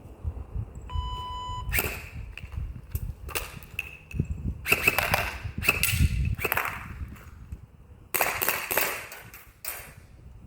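A short electronic beep, then a string of airsoft gun shots and short bursts of fire, the last near the end.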